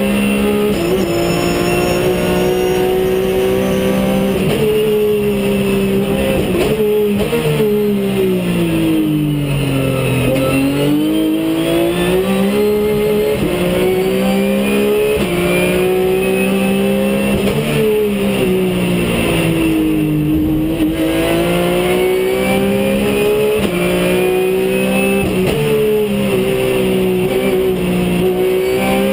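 Race car engine heard from inside the cockpit, running hard on track. Its note holds steady for long stretches, twice falls away and climbs back up as the car slows and accelerates again, and dips more shallowly near the end.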